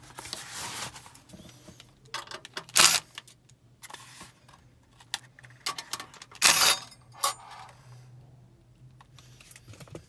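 Small metal clicks and clinks from screws and a steel mounting bracket being handled and worked loose from a car audio unit, with two louder clatters about three seconds and six and a half seconds in.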